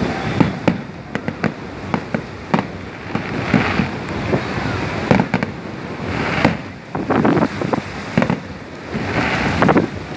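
Aerial fireworks going off: a run of irregular sharp bangs from bursting shells, with quick clusters of crackling.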